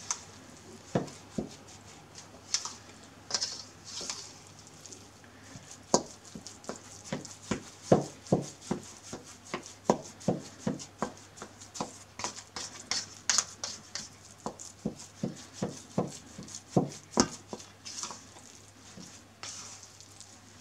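A bowl scraper working a buttery dough in a stainless steel mixing bowl. The scraper knocks against the metal bowl in a string of irregular sharp taps, about one or two a second, with soft scraping swishes between them.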